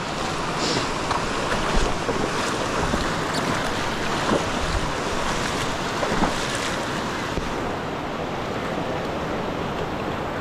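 Fast river water rushing steadily, with wind on the microphone and a few faint knocks.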